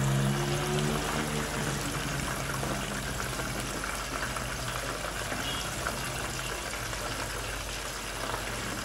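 Yam pieces frying gently in oil on very low heat, a steady soft sizzling and bubbling. A low hum that rises slightly in pitch fades out in the first couple of seconds.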